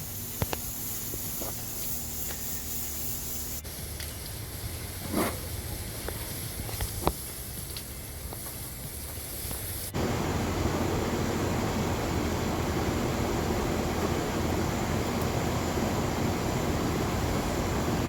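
Water spraying from a hose through an outdoor heat pump's condenser coil from the inside, rinsing debris out through the fins. It is a steady spray with a few short knocks in the first half. The sound changes abruptly twice and grows louder and fuller about ten seconds in.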